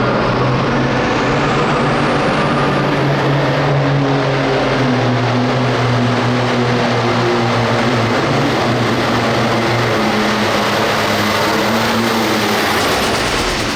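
Diesel engine of a hot farm pulling tractor running hard under load, a loud, steady drone that eases off near the end.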